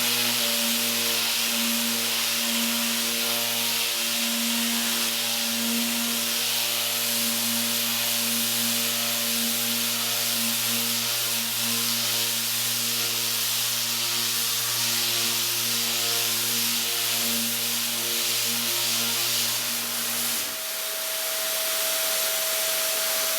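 Electric sander with 60-grit paper running steadily as it strips the paint from a wooden pinball playfield: a steady motor hum under a dense abrasive hiss. About twenty seconds in, the low hum drops out and a single higher steady whine carries on with the hiss.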